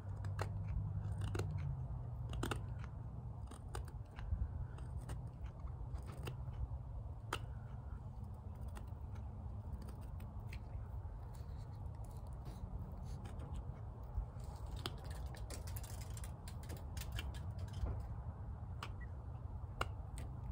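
Small steel carving blade of a folding whittling tool cutting notches into a stick of wood: short, irregular clicks and scrapes as each cut bites and chips out. A steady low hum runs underneath.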